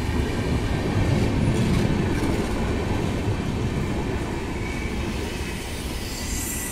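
Red LHB-type passenger coaches of an Indian Railways express rolling past close by, with a steady rumble of wheels on the rails. The rumble eases slightly as the arriving train slows.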